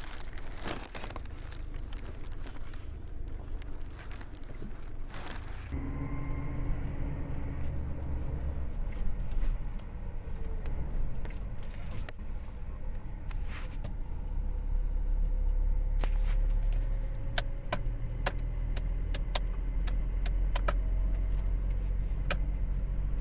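Toyota Hilux's 2TR four-cylinder petrol engine running on a test drive, now starting and running after its faulty injection relay was replaced; the engine sound swells for a few seconds midway, with scattered small clicks and rattles.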